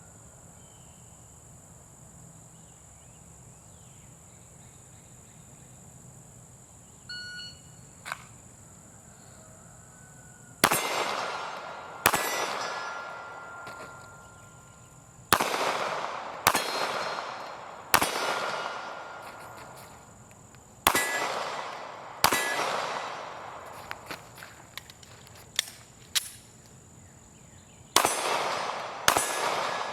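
Crickets chirping steadily, then a shot-timer beep about seven seconds in. From about ten seconds in, a Glock 43 9mm pistol fires about nine shots, one to three seconds apart, each followed by the ringing of steel targets. There is a longer pause with a few light clicks before the last two shots.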